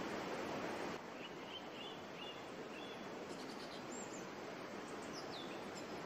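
Steady rush of a mountain waterfall, dropping slightly in level about a second in, with a small bird chirping in short high calls from then on, one call sliding down in pitch near the end.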